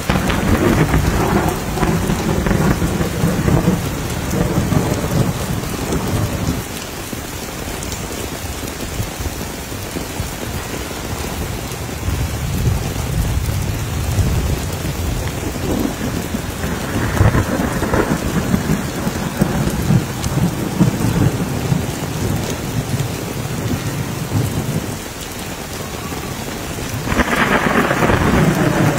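Steady rain falling on wet ground, with rolling thunder: long low rumbles over the first several seconds, again through the middle, and building once more near the end.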